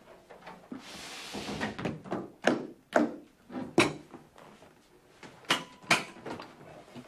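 Hard-shell attaché case handled on a table and opened: a rustle about a second in, then several sharp clicks and knocks, the last two about half a second apart.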